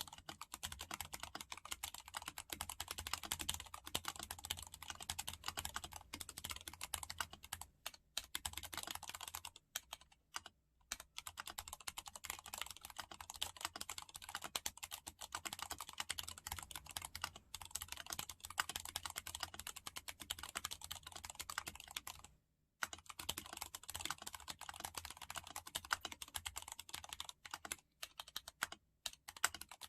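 Mechanical keyboard with Gateron Ink Yellow linear switches, lubed with Krytox 105, being typed on continuously: a fast, dense run of keystrokes with a few short pauses, including a longer one about two-thirds of the way through.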